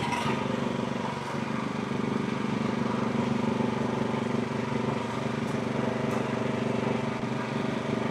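Frontier OS35 hydraulic sawmill's engine running steadily at an even speed.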